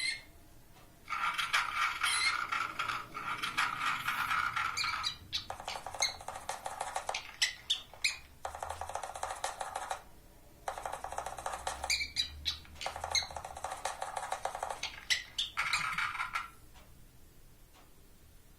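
Background music with wood-block-like percussive knocks, playing in phrases broken by short pauses and dropping away near the end.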